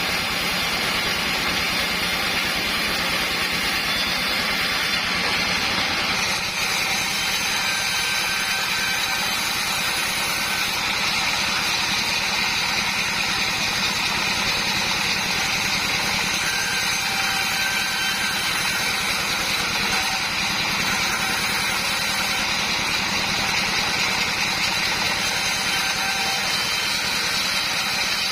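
Homemade sawmill's board saw and its motor running steadily, a constant machine drone with a thin high-pitched tone over it; the sound shifts slightly about six seconds in.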